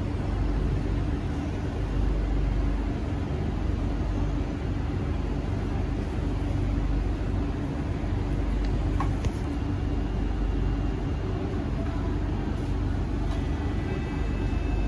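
Steady hum inside a stationary SMRT C151C metro train car with its doors open. Near the end, faint steady tones of the door-closing chime start.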